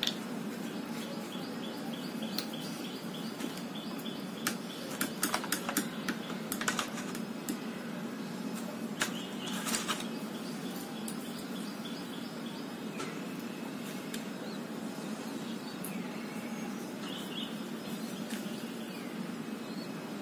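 Steady background hum with a few short high chirps and a cluster of light sharp clicks about four to seven seconds in.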